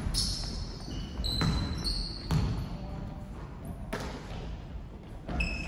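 A basketball bouncing on an indoor court several times at uneven intervals, with sneakers squeaking in short high-pitched chirps between the bounces.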